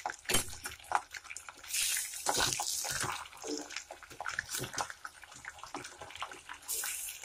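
Raw chicken pieces sizzling in hot oil in a stainless steel pot on full flame, with a ladle clinking and scraping against the pot as it stirs. The sizzle swells about two seconds in and again near the end.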